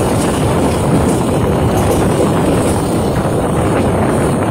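Blora Jaya passenger train running at speed: a steady, loud rumble of wheels on rail mixed with rushing wind.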